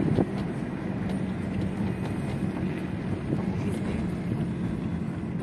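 Steady running noise of a car driving, heard from inside the cabin, with some wind buffeting the microphone.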